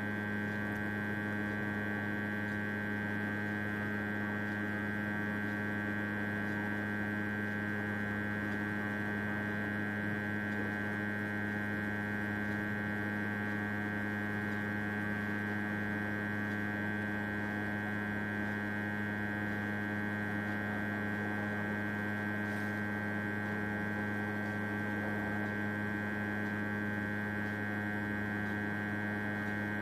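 Steady electrical mains hum: a low hum with a ladder of higher tones stacked above it, unchanging at an even level throughout.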